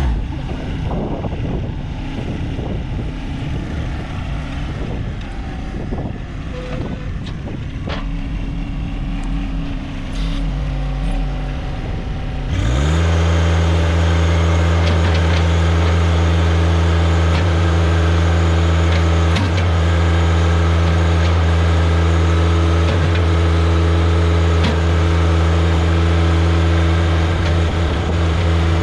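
John Deere 1025R compact tractor's three-cylinder diesel engine running at low revs, with a few knocks, for about twelve seconds. It is then throttled up with a quick rise in pitch and runs at a steady high speed while the front-loader bucket is pressed down to drive a ground rod into the ground.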